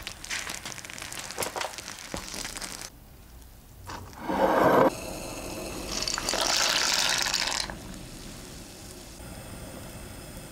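Thick meat sauce bubbling and crackling in a frying pan. After a brief lull comes a loud short splash, then water pouring for about a second and a half, then the steady bubbling of conchiglie pasta shells boiling in a pot of water.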